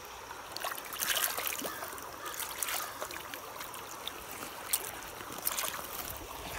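Shallow stream running over rocks, with a few brief splashes as a hand lowers a small fish into the water to release it.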